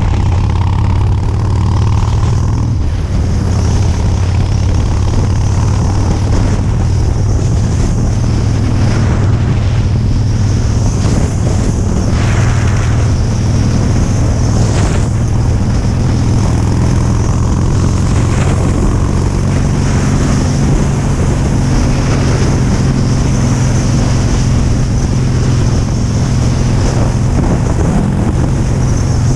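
Cruiser motorcycle engine running steadily at highway speed, heard from the rider's seat, with wind and road noise rushing over the microphone.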